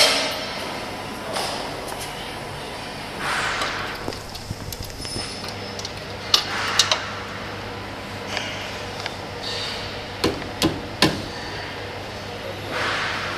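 Sharp knocks and taps on metal: two about six seconds in, then three in quick succession a few seconds later. Softer rustling swishes and a faint steady electrical hum lie between them.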